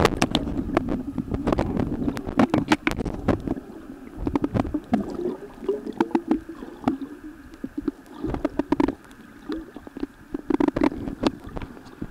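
Muffled underwater sound from a submerged phone microphone: water gurgling and sloshing around it, with many sharp clicks and knocks.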